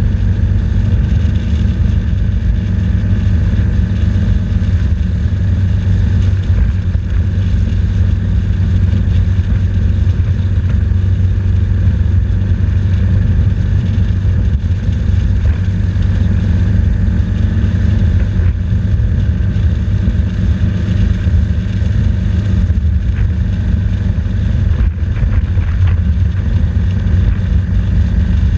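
BMW R 1200 GS motorcycle's boxer-twin engine running at a steady speed, heard from on board the bike.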